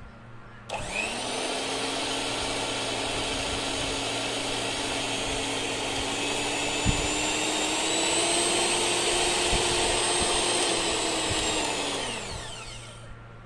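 Electric hand mixer's motor switched on, running with a steady whine that rises slightly in pitch partway through, then winding down near the end.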